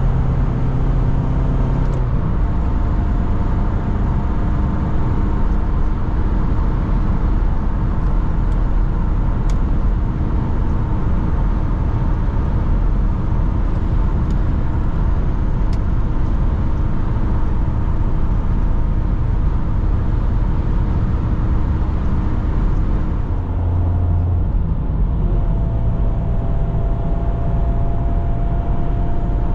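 Opel Omega B 2.2 four-cylinder engine and tyre and wind noise, heard from inside the car cruising on a motorway: a steady hum over road roar. The engine note changes briefly about three-quarters of the way through.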